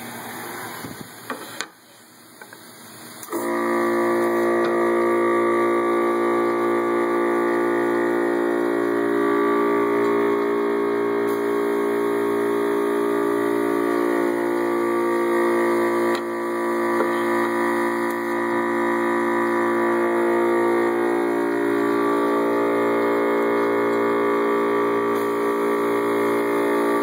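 A loud, steady electric hum with many overtones, switching on about three seconds in and running unchanged.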